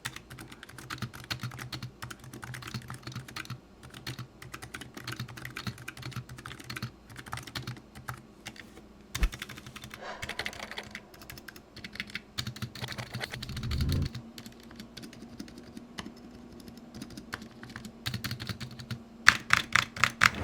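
Continuous fast typing on a Razer Huntsman Mini with linear optical switches, set straight on the desk without a desk mat: a dense patter of key strikes, with a few louder strikes near the end.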